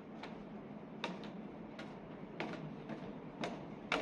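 Light clicks or taps at an uneven pace, about one every half second, over a steady low background drone inside a ferry.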